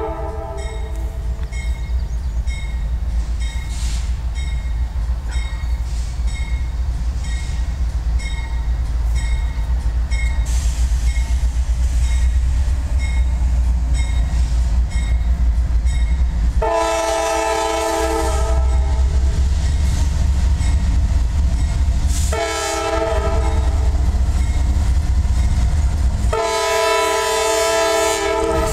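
Air horn of a CSX CW44AC (GE AC4400CW) diesel locomotive sounding the grade-crossing signal as the train nears the road: a long blast about two-thirds of the way in, a short one, then another long blast starting near the end. Under it runs the steady low rumble of the locomotive's diesel engine as it draws close.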